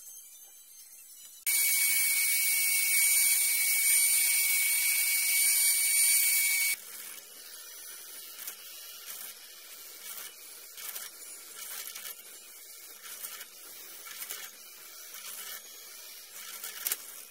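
Benchtop drill press boring holes in pine. A loud steady whine starts and stops sharply, then comes a quieter stretch of the bit cutting, with many small clicks and crackles as the chips come away.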